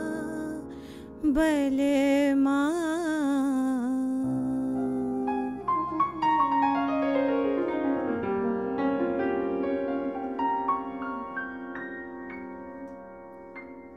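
Soprano saxophone playing a melody with vibrato over piano. From about five seconds in, the piano plays a descending run, then ringing notes that slowly fade.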